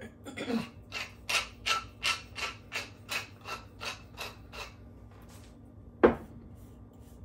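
A tall wooden pepper mill being twisted to grind peppercorns: a steady run of raspy crunches, about three a second, for four to five seconds. About six seconds in comes a single sharp knock as the mill is set down on the wooden board.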